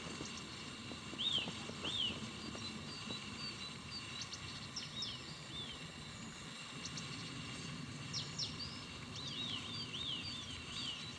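Small songbirds calling in short, high chirps, some in quick runs of several notes, over a steady low background noise.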